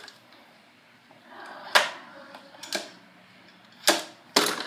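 Recoil pull-starter on a pressure washer's small gasoline engine, pulled in several short, sharp yanks that crank the cold engine without it firing.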